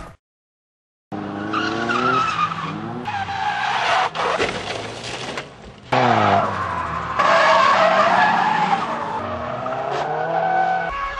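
Drift cars sliding sideways on a circuit: engines revving up and down with tyres squealing, changing abruptly several times from one car to the next. Silent for about the first second.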